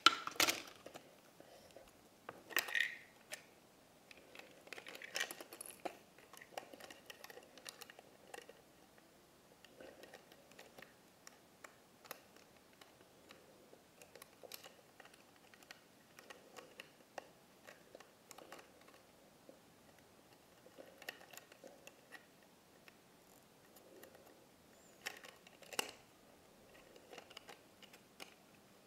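Small hard-plastic Polly Pocket toys being handled: scattered light clicks, taps and rattles, with a sharp snap right at the start and a few louder clicks about three seconds in and near the end.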